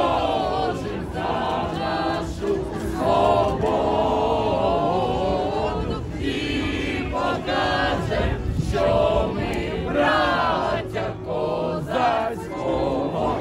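A crowd of protesters singing a song together, many voices in unison, in phrases with short breaks.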